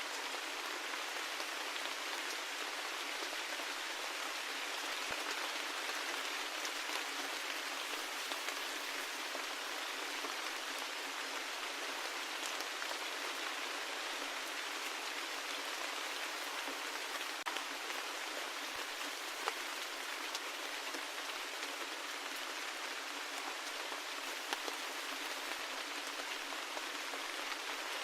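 Steady rain falling, an even hiss with scattered individual drops ticking louder here and there.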